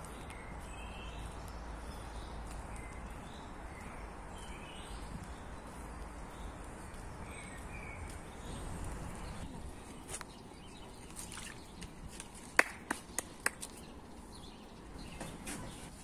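Small songbirds chirping in woodland over a steady rushing background. Later come a few sharp clicks, the loudest about two-thirds of the way in.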